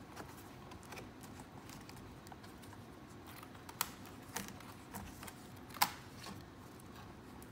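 Scattered light plastic clicks and taps as a Dell Precision 7530 laptop keyboard is handled, fitted and pressed into the chassis. Two sharper clicks come a little before four seconds and near six seconds.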